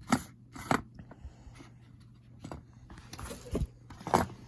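Steel impact sockets being handled against their plastic case: a handful of short clicks and taps, with a brief scrape a little past three seconds in.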